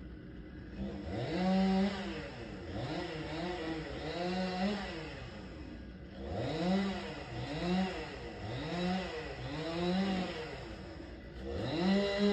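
Gas chainsaw cutting into a tree trunk, its engine revved up and back down about once a second. It drops briefly to idle twice before revving again.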